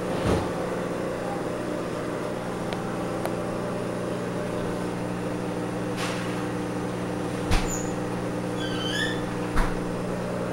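Steady electric hum of the aquarium's pump equipment running, with two brief soft knocks in the second half.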